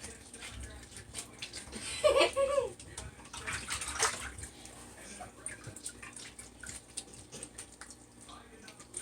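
Raw chicken pieces being washed by hand in a basin of water: irregular sloshing and splashing with small knocks, the biggest splash about four seconds in. A brief voice sound comes about two seconds in.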